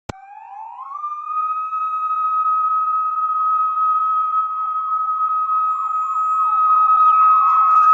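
Siren starting with a click, its pitch rising over about the first second and then holding one steady tone that slowly grows louder.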